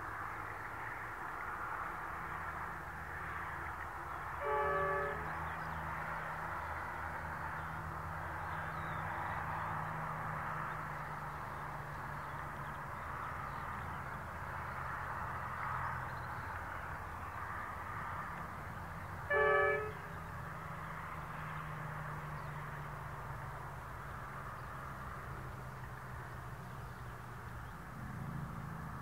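Pacific National NR class diesel-electric locomotives approaching with a freight train, their engines a steady low drone. The locomotive horn sounds two short blasts, about 15 seconds apart.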